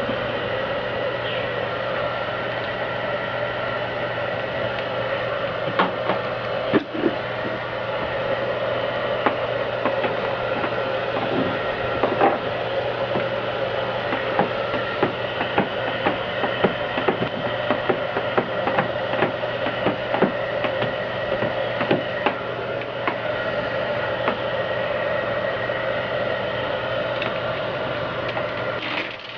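Electric heat gun blowing steadily while it heats tint film on a taillight, a constant hum under a broad hiss, with scattered sharp ticks and crackles from the plastic film being worked.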